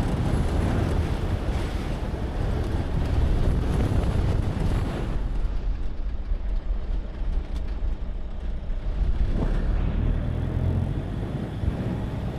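Vehicle driving on a gravel road: a steady rumble of tyre and road noise. About five seconds in the hiss drops away as the vehicle slows, and near the end a rising sweep suggests it is pulling away again.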